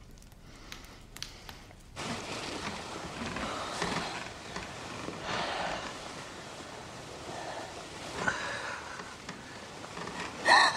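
Bedclothes rustling and soft breathing as someone shifts in bed under the covers, starting about two seconds in. Near the end, a short, loud vocal exclamation.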